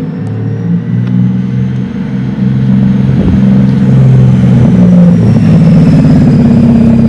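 Engine running close by, growing louder over the first few seconds, its pitch shifting up and down in steps as if lightly revved.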